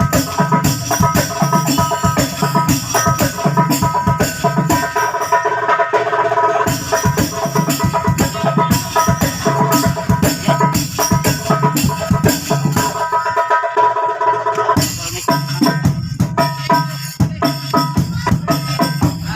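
Hadroh ensemble playing an instrumental passage: frame drums and tambourine jingles in a fast, steady rhythm under held melodic tones. The deep drum strokes drop out for a couple of seconds about two-thirds of the way through, then come back in.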